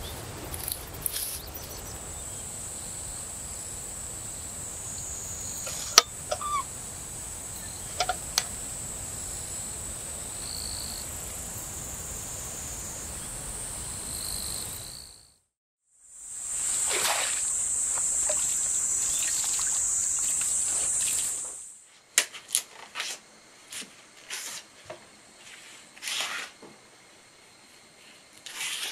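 Insects chirping in a steady high drone, with a few sharp clicks. It fades out halfway through and comes back louder for several seconds. It then gives way to quiet, short rustles and clicks as ramie stems are handled by hand.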